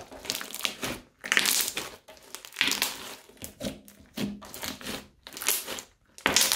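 Crunchy slime being kneaded, folded and pressed by hand, making about eight short crunches with brief pauses between them.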